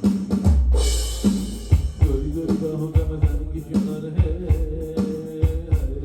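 Electronic drum sounds from an Alesis Strike MultiPad playing a beat, with kick and snare hits about twice a second. About half a second in comes a deep booming hit with a cymbal crash. From about two seconds in, sustained melodic notes play over the beat.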